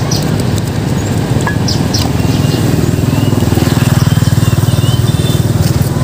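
Motorbike engine running close by, a steady fast-pulsing drone that grows louder toward the middle and then eases slightly.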